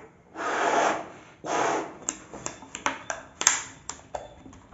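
A rubber balloon being blown up by mouth: two long puffs of breath rushing into it, then a quick run of sharp clicks as fingers handle the inflated balloon.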